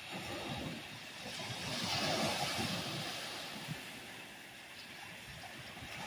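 Small freshwater waves of Lake Huron breaking on a sand beach: one wave surges and washes up the shore about two seconds in, then fades as it draws back, and the next begins to build near the end.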